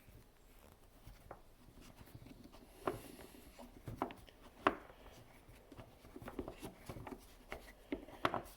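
Scattered light clicks and taps of small plastic and metal parts being handled during pump removal, a few sharper knocks among them.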